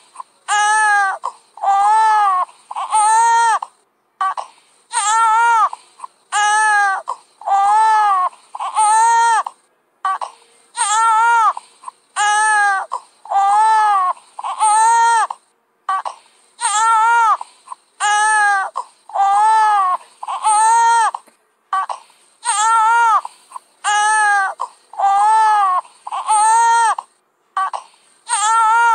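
Baby crying loudly, wail after wail, each rising and falling in pitch and lasting under a second, about one a second in runs of four with a short breath between runs.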